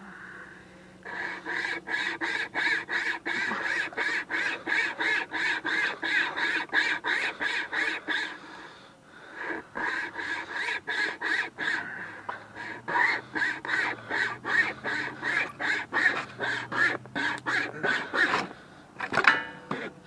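Pocket wire saw rasping back and forth through a wooden branch, about three strokes a second, with a short pause near the middle and the strokes stopping shortly before the end.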